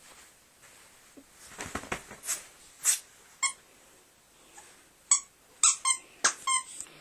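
Rubber squeaky dog toy squeaked repeatedly as a small dog bites and chews it: short, sharp squeaks, a few at first and then a quick run of about five.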